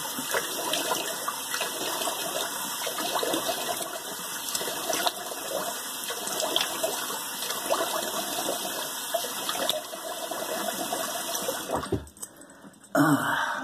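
Cold water running from a tap and splashing in a sink as the face is rinsed after a wet shave. It stops suddenly about twelve seconds in.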